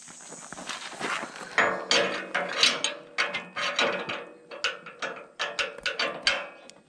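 Cordless DeWalt 20V XR impact wrench running and hammering in uneven bursts, loosening a bolt on the lift post's end bracket. The hammering starts about a second and a half in.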